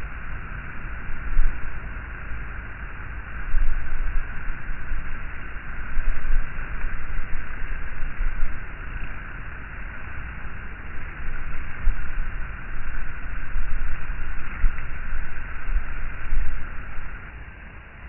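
Honey bees of a swarm buzzing in a steady drone around a hive, with gusts of wind buffeting the microphone. The gusts are the loudest part and ease off near the end.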